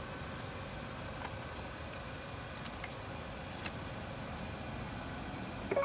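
Steady low background hum with a few faint clicks, then near the end a short electronic beep from the parking pre-payment machine's ticket reader as it reads the parking ticket's QR code.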